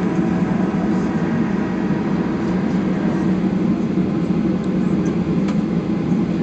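Steady drone of a Boeing airliner's passenger cabin with the engines running, an even low hum of engine and cabin ventilation noise.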